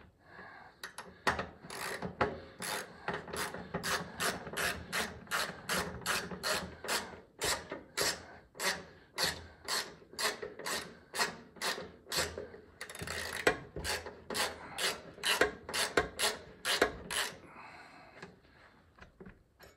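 Hand socket ratchet on an extension driving a bolt into a wheel-well panel: a quick run of pawl clicks on each back-stroke, about two strokes a second, thinning out near the end.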